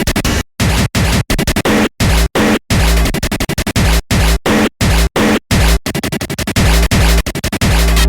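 Electronic music with turntable scratching over heavy bass, chopped by frequent abrupt stop-start cuts to silence.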